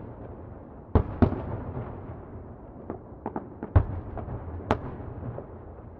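Distant fireworks exploding: irregular sharp bangs, two close together about a second in and a cluster of smaller pops in the middle, each trailing off in a rolling echo over a steady low rumble.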